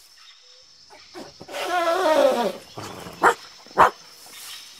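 An animal whining: one wavering, pitched cry lasting about a second, followed by two sharp clicks about half a second apart.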